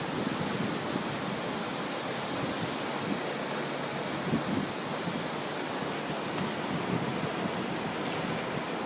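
A river swollen with typhoon rain rushing in flood, a steady, even roar of water. Wind buffets the microphone briefly a few times.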